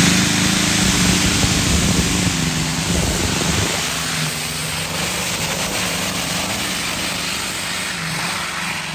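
Modified pulling tractor's engine at full power under load, dragging the weight sled down the track. The engine note holds steady and slowly fades as the tractor moves away.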